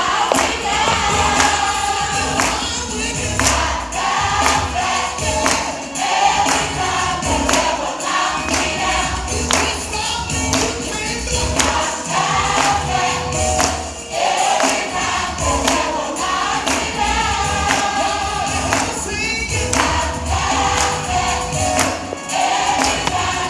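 Youth gospel choir singing a praise song over a band, with a steady percussion beat and heavy bass.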